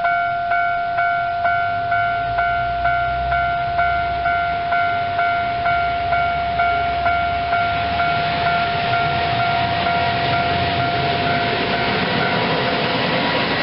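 Japanese level-crossing warning bell ringing steadily, about two dings a second, as a Shimabara Railway Kiha 2500-series diesel railcar departs. From about eight seconds in, the railcar's diesel engine and wheels grow louder as it nears and crosses, covering the bell near the end.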